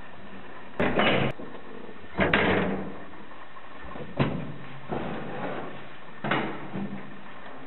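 Wooden, glass-paned doors of an old lift being unlatched and pulled open: a series of about five latch clicks, knocks and rattles.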